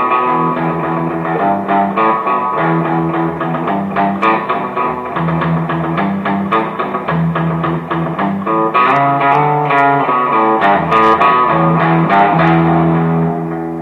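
Instrumental music led by plucked guitar, playing rhythmic notes and fading out near the end.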